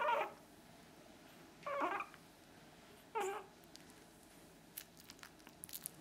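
Two-month-old chihuahua puppy whining in three short, high cries about a second and a half apart, followed by a few faint clicks near the end.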